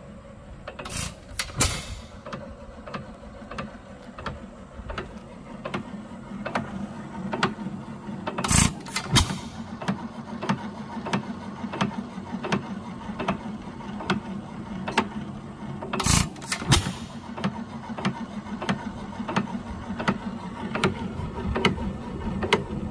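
Antique hit-and-miss engine running on its own: it fires in short bursts of two or three loud bangs about every seven to eight seconds and coasts in between with light ticking from its mechanism. This is the usual hit-and-miss rhythm of an unloaded engine whose governor is holding it at speed, and the owner has it dialed in.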